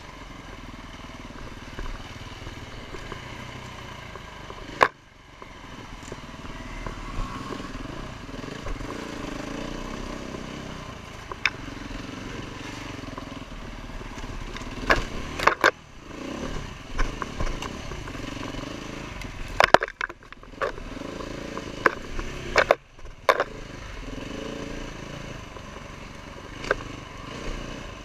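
Dirt bike engine ridden over a forest trail, revving up and down with the throttle, heard through a bike-mounted camera, with sharp knocks and clatter from the bike and mount jolting over bumps, most of them in the second half.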